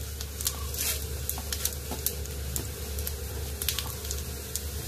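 Cumin and coriander seeds sizzling in hot oil in a steel pan as the coriander goes in, with scattered sharp crackles and pops over a steady sizzle.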